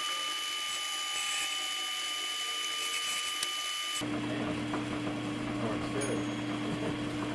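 Metal lathe running with a steady whine and hiss while turning hinge pins to length. About four seconds in the sound cuts abruptly to a lower, steady motor hum.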